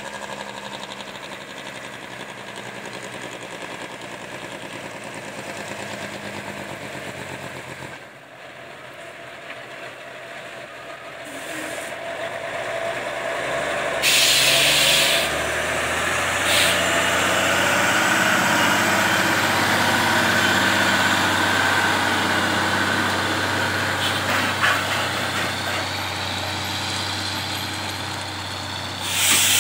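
Heavy-haul superload truck's diesel engine running, growing louder as it comes closer, with loud hisses of air brakes about halfway through, a short one just after, and another near the end.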